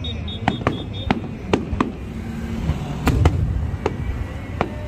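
Aerial fireworks shells bursting overhead: a rapid, irregular string of sharp bangs, about nine in five seconds, over a low rumble.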